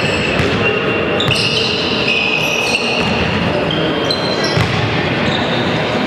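Basketball game in a gym: steady crowd noise with a ball bouncing on the court and high, short sneaker squeaks on the hardwood.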